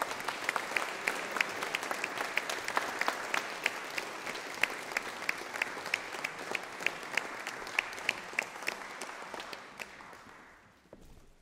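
Audience applauding, with one person's sharp claps standing out at about three a second; the applause dies away near the end.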